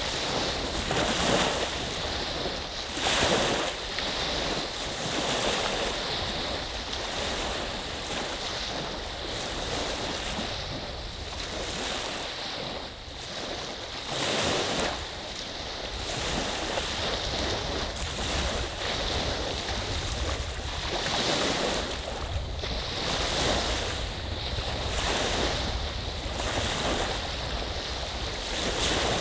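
Small lake waves on Saginaw Bay breaking and washing ashore, the rush of water swelling and easing every couple of seconds.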